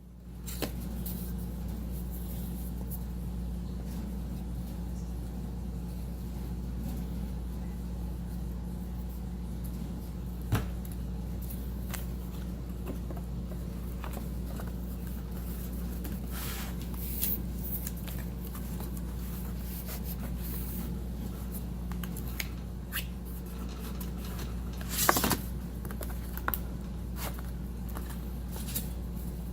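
Painter's tape being pulled off the roll and pressed onto small wooden module pieces: scattered light clicks and handling taps with a few short rasps, the loudest about 25 seconds in, over a steady low hum.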